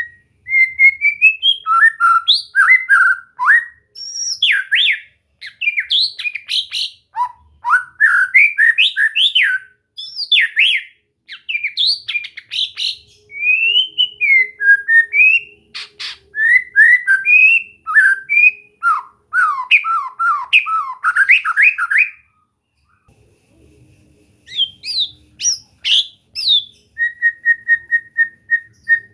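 White-rumped shama (murai batu) singing a long, varied song of fast whistled phrases and chattering trills. It breaks off for nearly two seconds about three-quarters of the way through, then resumes and ends on a rapid run of repeated notes.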